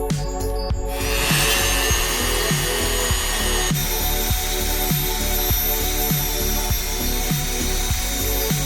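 Electronic background music with a steady kick-drum beat about twice a second. From about a second in, a loud, even hiss with a few thin high tones lies over it.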